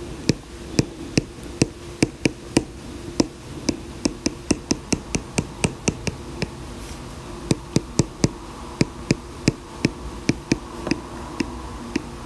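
Stylus tapping and clicking on an iPad's glass screen during handwriting: sharp, irregular ticks a few times a second with a short pause about halfway through, over a faint steady hum.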